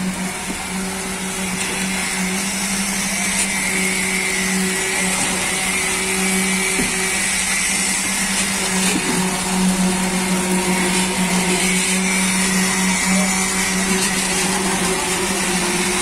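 Concrete poker vibrators running, electric motors driving flexible shafts into the fresh concrete, with a steady hum over a hiss.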